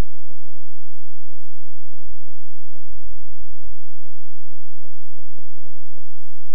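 Dull low thumps, roughly three a second, over a steady low hum: handling noise from a camera being carried while it records.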